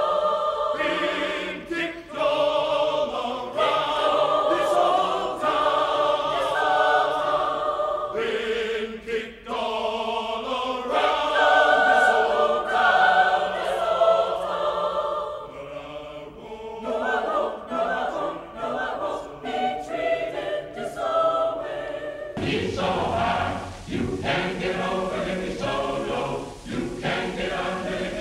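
Mixed choir of women's and men's voices singing in parts. About 22 seconds in, it cuts abruptly to a different, older-sounding recording.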